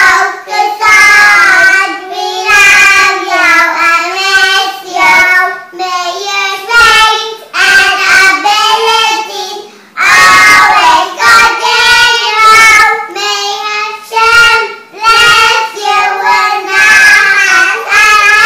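Two young girls singing a blessing song together.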